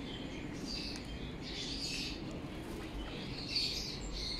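Small birds chirping and twittering, many short high-pitched calls one after another.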